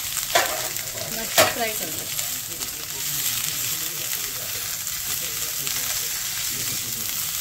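Mixed vegetables sizzling in hot oil in a nonstick wok as they are stir-fried with a silicone spatula, a steady hiss with two louder strokes of the spatula about half a second and a second and a half in.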